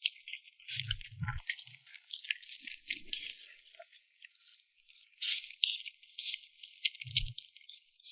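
Close-miked mouth sounds of eating cream cake: dense, irregular wet clicks and smacks of chewing, with soft low thumps about a second in and again near the end.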